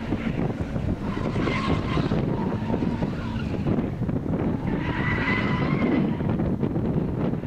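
Car being driven hard sideways through corners while drifting: the engine runs at high revs with tyres squealing, the squeal rising most clearly about two seconds in and again about five seconds in.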